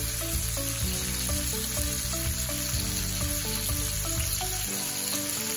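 Chicken thighs sizzling steadily as they sear in hot oil in a saute pan, under background music whose bass drops out near the end.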